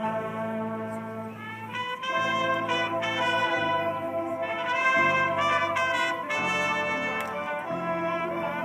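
High school marching band playing, its brass section sounding held chords that change every second or two and swell loudest a little past the middle.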